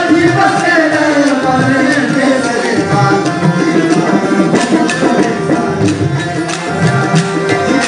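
Live Rajasthani Manganiyar folk music: a male singer's long, sliding vocal line over a steady hand-drum rhythm and sustained harmonium. The voice glides downward through the first few seconds, and the drum strokes carry on under it.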